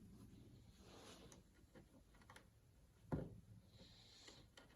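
Near silence with a few faint clicks and one short knock about three seconds in: small handling noises of parts as a new seal is fitted to a hydraulic cylinder.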